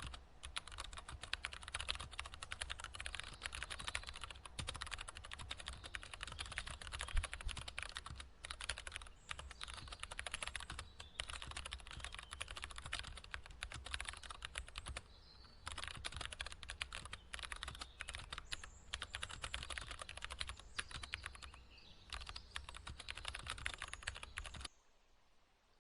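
Rapid typing on a computer keyboard: dense runs of key clicks broken by short pauses, stopping abruptly near the end.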